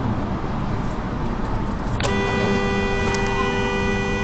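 Steady road and engine rumble from a moving vehicle. About halfway in, a car horn starts suddenly and is held as one continuous, unchanging two-note tone.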